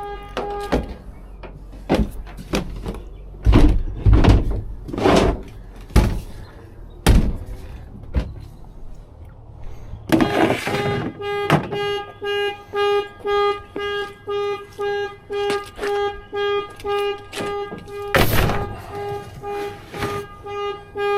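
Car alarm sounding the car's horn in steady repeated honks, about two a second. It stops about a second in, several heavy thuds follow, and the honking starts again about ten seconds in.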